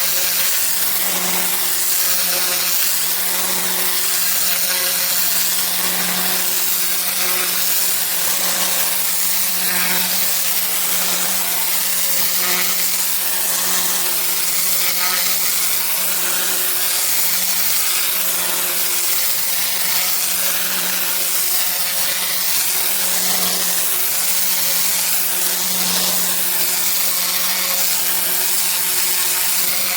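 Pressure washer running with a turbo (rotating) nozzle, its water jet spraying onto block paving: a steady hum from the machine under a constant hiss of spray.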